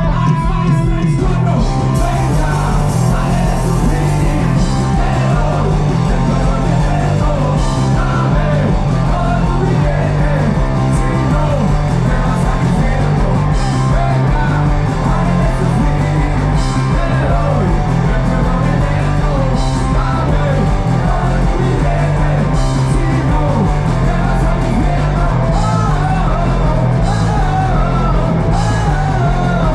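Rock band playing live: electric guitars, bass guitar and drums with a singer's voice over them, loud and steady, with cymbal crashes every few seconds. Heard from within the crowd.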